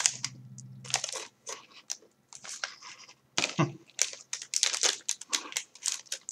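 Someone chewing a mouthful of Umaibo, a puffed corn stick snack, with many irregular dry crunches close to the microphone.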